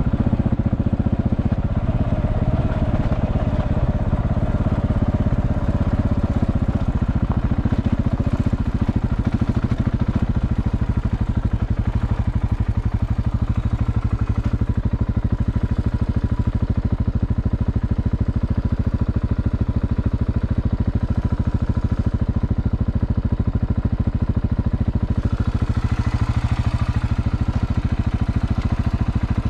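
KTM 690 Enduro's single-cylinder engine running steadily, a dense low rumble throughout.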